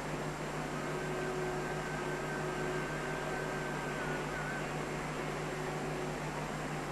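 Steady hiss and low hum: the background noise of an old recording of the 1950s–60s, heard in a pause between recited verses. A faint wavering tone sits over it from about a second in until about four and a half seconds.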